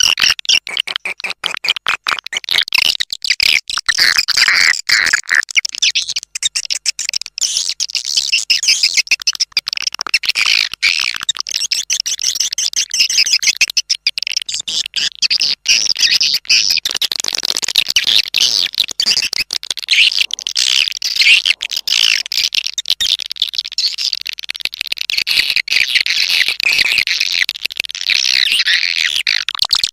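Swiftlet calling recording: a dense, continuous chorus of high swiftlet chirps and twitters, thick with rapid clicks. It is the lure sound played to draw swiftlets into a swiftlet house.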